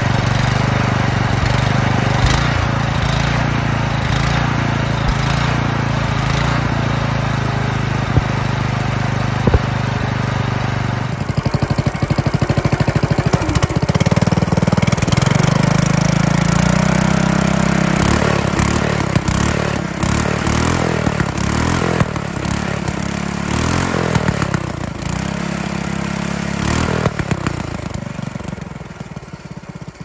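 420cc single-cylinder four-stroke engine running steadily through its stock muffler. About eleven seconds in, it switches to the same engine through an all-stainless performance muffler, a little louder, revved up and down several times, with the revs falling away near the end.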